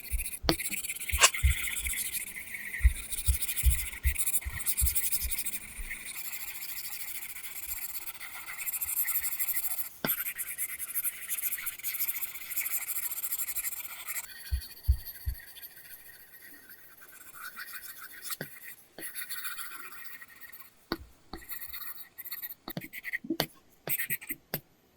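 Apple Pencil strokes scratching across a paper-texture film on an iPad Pro screen: stretches of scratchy drawing with short pauses, and light knocks of the pencil tip, many in the first few seconds and again about halfway through.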